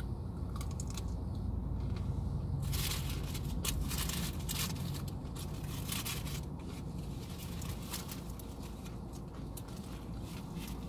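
Crunching and chewing of a crispy breaded fried chicken tender, with a run of crackly crunches from about three to five seconds in and lighter ones after. A steady low hum of the car cabin runs underneath.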